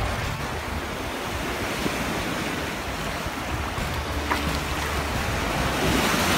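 Surf washing and breaking in the shallows, a steady rush of water, with wind on the microphone.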